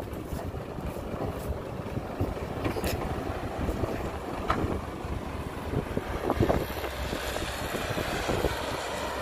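Heavy diesel engines of a Cat 312B excavator and dump trucks running steadily, with a few short knocks.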